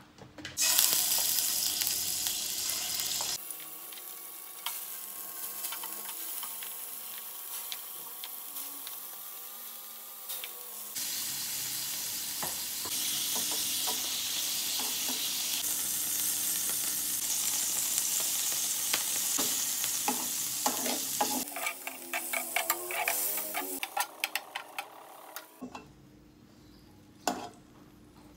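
Shrimp frying in hot oil in a nonstick pan: a loud sizzle that starts suddenly about a second in and goes on for about twenty seconds. Near the end, metal tongs click against the pan as the shrimp are turned, and then the sizzle stops abruptly.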